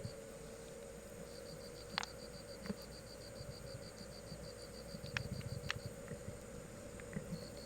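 Insect trilling, a fast, even, high-pitched pulsing that pauses briefly a few times, with a few faint sharp clicks.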